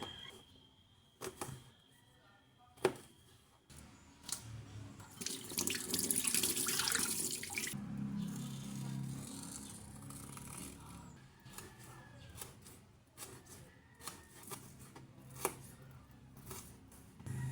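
Kitchen tap running into a sink for about three seconds, starting about five seconds in, with scattered clicks and knocks of utensils or dishes being handled around it.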